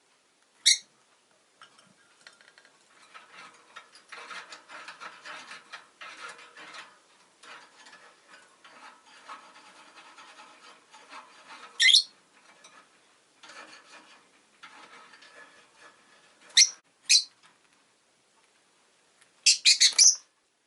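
Rosy-faced lovebird giving short, sharp chirps, one at a time at first and then a quick run of several near the end, with a softer scratchy rustling in between.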